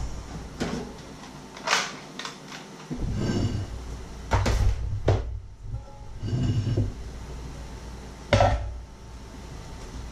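Crockery and an enamel bowl being handled and set down on a wooden worktop: a series of separate knocks and clinks, the loudest about eight seconds in, over a steady low hum.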